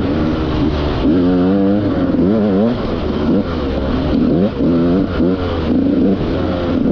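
Dirt bike engine revving up and dropping back again and again as the rider works the throttle through the trail, the pitch climbing and falling every second or so.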